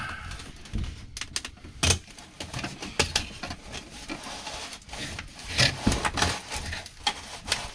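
Flexible dryer vent duct being pushed and wrestled onto its fitting, crinkling and crackling with irregular clicks and knocks as the tube collapses.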